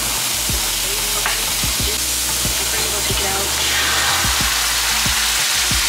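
Minced garlic sizzling in hot fat in a cast iron skillet. The sizzle swells a little past the middle as a creamy liquid is poured into the pan.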